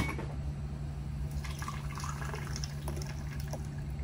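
Freshly blended juice poured from a blender jar into a glass with ice cubes: a soft, steady trickle that starts about a second and a half in.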